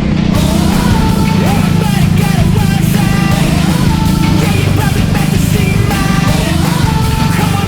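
Loud rock music with a singing voice and electric guitar.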